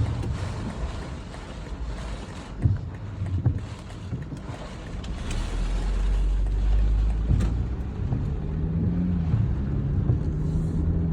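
Strong gusty wind buffeting the microphone with a heavy low rumble that swells about halfway through; a low steady hum joins in near the end.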